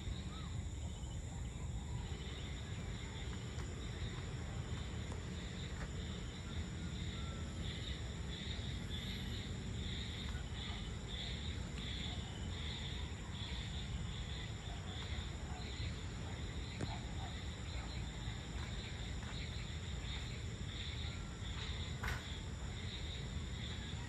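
Dusk chorus of insects: a steady high shrill with a chirp that pulses about twice a second through the middle, over a low steady rumble. A single sharp click sounds near the end.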